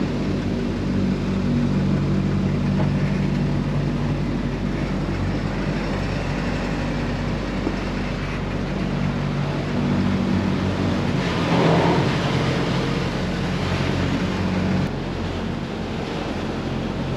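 A large engine running steadily with a low hum, and a louder rush of noise about eleven seconds in that lasts a couple of seconds.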